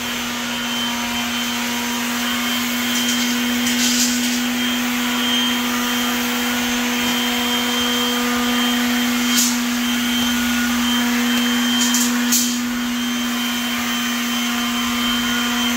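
A machine running with a steady hum and a low, even drone, with a few short hissy ticks.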